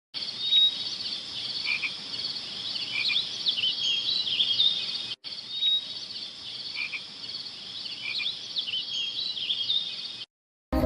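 A chorus of frogs calling at night: many short, high chirping calls overlapping, with a brief break about halfway.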